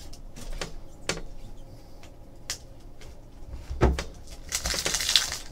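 Trading cards and packs being handled on a table: scattered light clicks and taps, a louder knock about four seconds in, then a brief rustle of cards sliding near the end.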